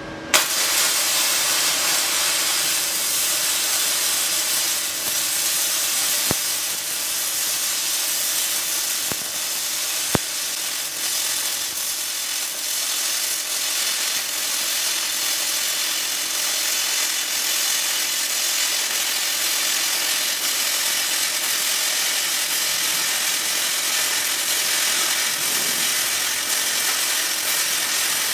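Flux-core wire welding arc: it strikes with a sharp crack just after the start, then runs as a steady, loud crackling sizzle as the bead is laid, with a couple of brief pops along the way.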